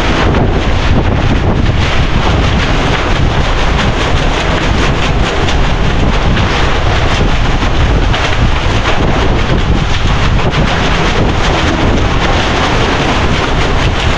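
Strong wind buffeting the microphone: a loud, steady rumble of wind noise with no letup.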